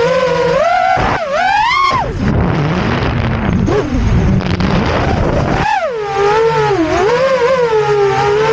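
FPV quadcopter's brushless motors whining, the pitch rising and falling smoothly as the throttle changes. About two seconds in the whine drops to a rougher, lower sound for a few seconds before climbing again.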